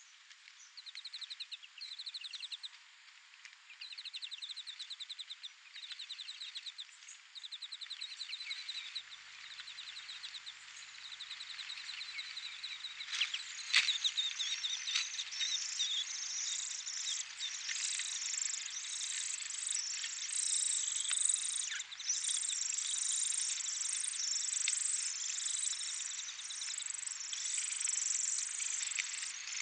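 European greenfinch nestlings begging at the nest as an adult feeds them: a dense, continuous chorus of shrill, high begging calls from about halfway on, after a sharp click. Before that, short bursts of rapid trills repeat about every second and a half.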